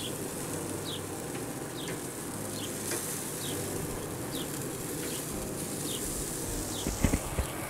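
Chicken pieces sizzling steadily on the hot grates of a pellet grill, with metal tongs knocking against the grate a few times near the end. A short high chirp repeats about every second behind it.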